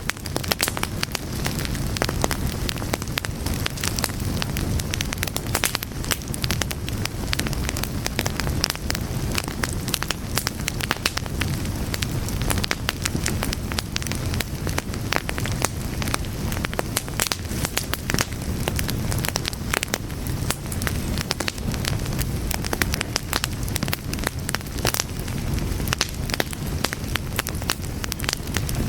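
Fire crackling steadily: a dense, irregular run of sharp pops and snaps over a low, continuous rumble.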